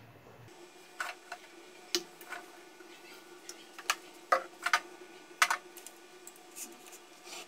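Light, irregular clicks and ticks from a nonstick frying pan on a portable gas stove as a little cooking oil goes into the pan and is swirled round, over a faint steady hum.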